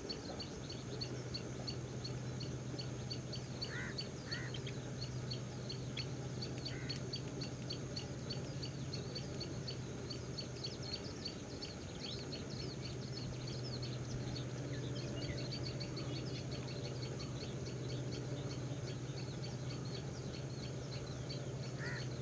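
Birds chirping in steady fast series of short high notes, with a few louder calls about four seconds in and at the end. A steady low hum runs underneath, and a thin high whine comes in about two-thirds of the way through.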